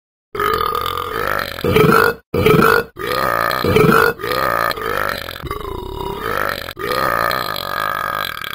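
A man belching letters of the alphabet, one drawn-out burp after another shaped into letter sounds, with short breaks between them.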